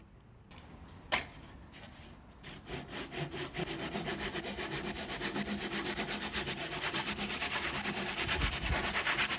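A single sharp click about a second in, then a Suizan ryoba Japanese pull saw cutting wood in quick, even strokes, starting light and growing louder.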